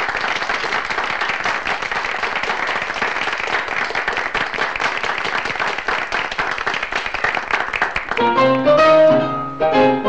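Audience applauding. About eight seconds in, a piano starts playing a run of held notes and chords.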